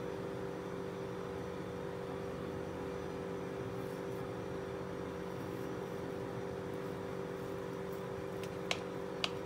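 A steady machine hum, with a couple of steady tones in it. Near the end come two light clicks of a knife blade touching the plate as the cake is sliced.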